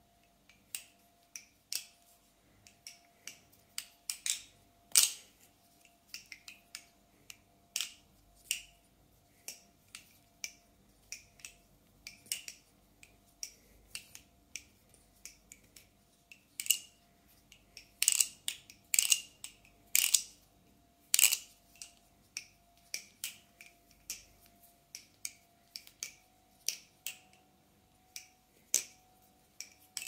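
Balisong (butterfly knife) being flipped: irregular sharp clicks and clacks as the handles swing about the pivots and knock against each other and the blade, with a run of louder clacks past the middle.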